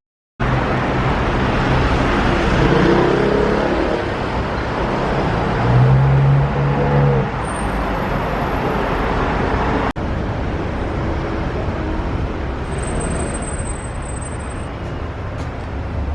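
City street traffic: a steady noise of cars and buses on the road, with an engine hum and some higher pitched tones coming through about six to seven seconds in. The sound breaks off suddenly for an instant near the ten-second mark and then carries on.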